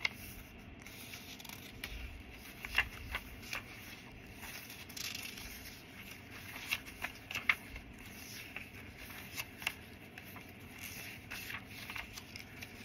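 Paper and cardstock pages of a handmade junk journal being turned and handled: soft paper rustling with scattered light taps and clicks.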